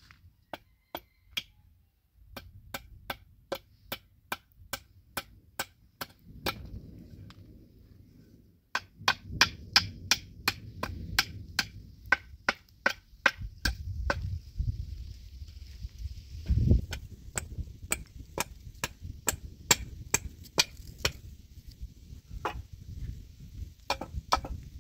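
Hatchet chopping at a wooden stake held upright on the ground: a run of sharp strikes, about two a second, with a short pause about a third of the way in.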